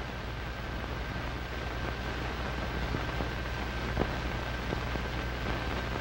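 Steady hiss with a low hum and a few faint clicks: the surface noise of an old optical film soundtrack.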